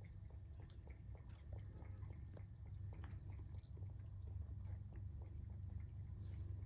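Faint, wet clicking of a cat chewing food, over a low steady hum.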